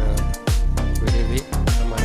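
Upbeat dance music with a deep kick drum that drops in pitch on each beat, a few hits a second, over a bass line and chords.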